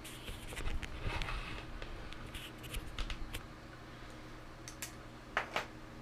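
Scrapes, rustles and light clicks of a camera being handled and repositioned, busiest in the first few seconds, over a low steady hum.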